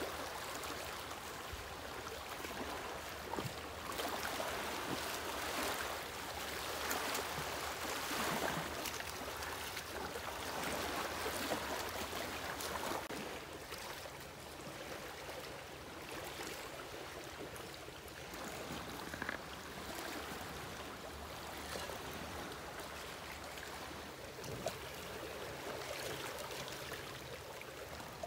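Steady rushing of flowing water, swelling and easing softly, with a few faint clicks.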